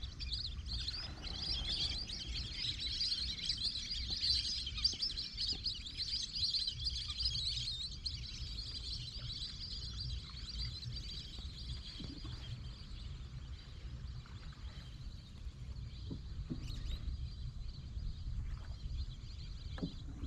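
A flock of lesser whistling ducks calling in flight, a dense high-pitched chorus of whistles that thins out about halfway through, over a steady low rumble.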